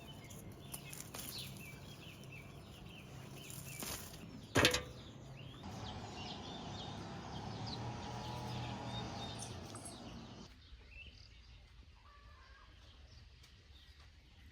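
Outdoor rural background with small birds chirping now and then, and one sharp knock about four and a half seconds in.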